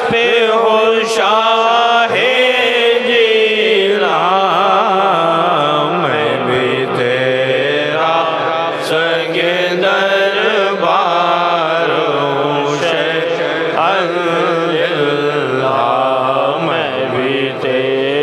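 A man sings a devotional Urdu manqabat in a slow, melismatic chant-like style, his voice gliding and wavering on long held notes over a steady drone.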